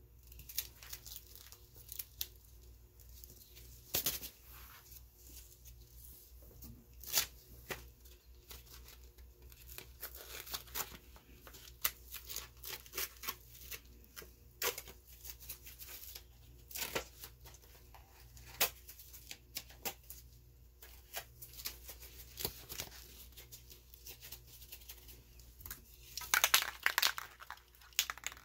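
Paper crackling and crinkling as it is pressed onto wet spray paint and peeled off: scattered sharp crackles, with a dense run of them near the end.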